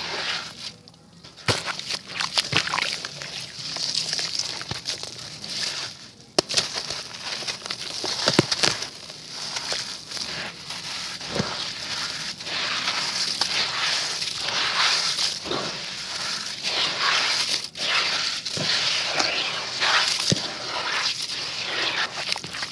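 Wet, crumbled black concrete being squeezed and rubbed by hand in a tub of water: a continuous gritty crackling and crunching with sharp clicks now and then, and water squelching between the fingers.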